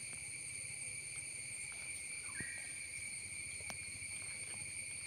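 Steady, high-pitched drone of insects, a cricket or cicada chorus, with a brief thin note about two and a half seconds in and a few faint ticks.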